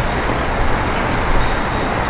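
Steady city street noise with a low rumble.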